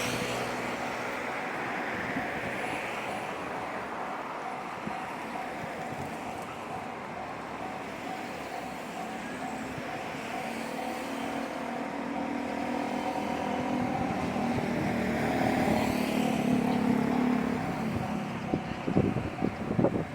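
Japanese level-crossing warning bell ringing steadily in an even repeating pattern. A KiRo 47 diesel railcar approaches, its engine growing louder, and wheel knocks over the crossing begin near the end.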